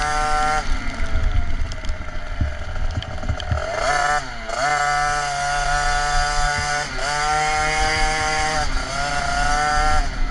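KTM 50 SX's small two-stroke single-cylinder engine revving hard while riding, its high buzzing pitch dropping off and climbing back up several times as the throttle is eased and reopened. Under it runs a low rumble of wind and knocks from the bumpy track.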